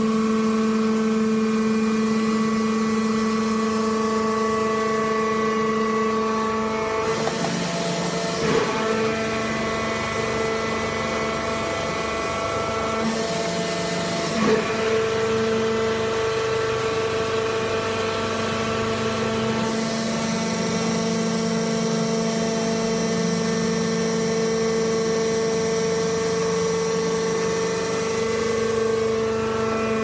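Hydraulic wood-chip bagging press running, its electric motor and hydraulic pump giving a steady hum and whine whose pitch shifts a few times as the press cycles. Two brief knocks come about a third and halfway through.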